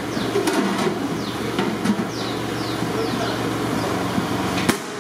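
A large steel plate lid is set and pressed onto a big cooking pot on a gas burner, giving a few sharp metal clanks, the loudest near the end. A steady low hum runs underneath, and birds chirp several times in short falling calls.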